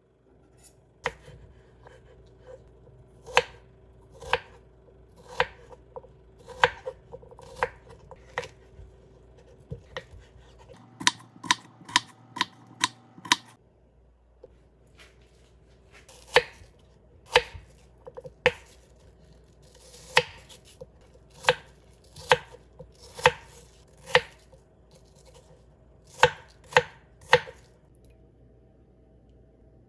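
Knife chopping cucumber and then apple on a wooden cutting board, in sharp, separate strokes about one a second, with a quicker run of strokes about halfway through.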